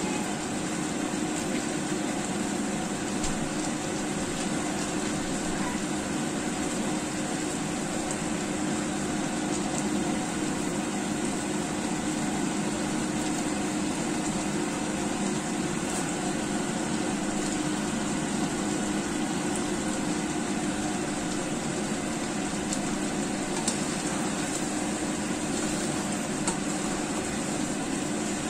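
Chicken wings and potatoes simmering in curry sauce in a frying pan, a steady sizzling and bubbling over a constant low hum. A few small clicks near the end.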